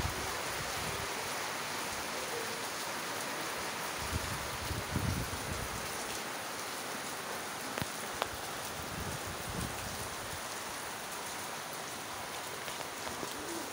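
Heavy rain falling steadily on trees, walls and roofs: an even, unbroken hiss. A few low bumps come about four to five seconds in, and a couple of small ticks follow a few seconds later.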